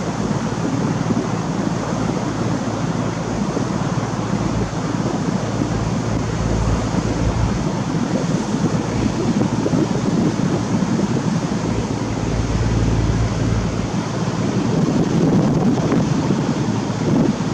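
Steady drone of a sailing boat's engine under way, with wind noise on the microphone and water rushing along the hull.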